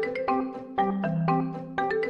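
Background music: a light, bouncy tune of quick struck notes on a marimba-like instrument over a repeating bass line.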